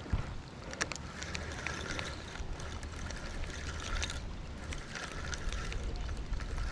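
Wind rumbling on the microphone over river water, with scattered small clicks and short recurring rasps from a fishing reel being cranked in on a hooked fish.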